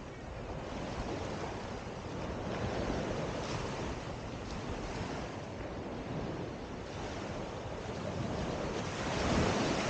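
Sea surf washing onto a beach, swelling about three seconds in and again near the end as waves break, with wind buffeting the microphone.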